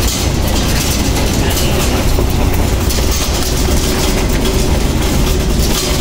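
Steady road and engine noise heard inside a moving car's cabin: a constant low rumble with tyre and wind hiss over it.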